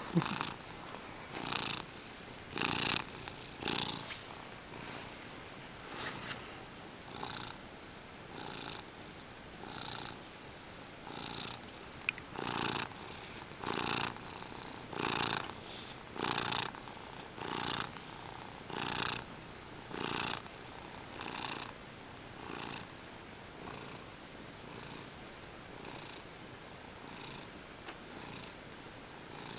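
Manx cat purring steadily, the purr swelling and easing with each breath about every second and a bit, fading somewhat toward the end.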